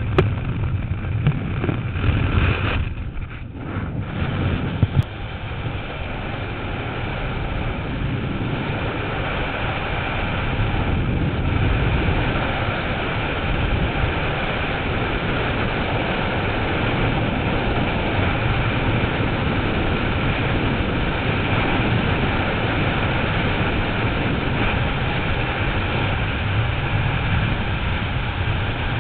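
Freefall wind rushing over a helmet camera's microphone, a steady loud roar. It is uneven for the first few seconds as the skydivers leave the plane, then settles into a steady roar.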